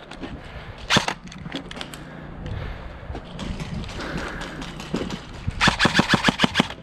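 Airsoft guns firing: a single sharp crack about a second in, scattered pops, then a quick string of about ten shots near the end.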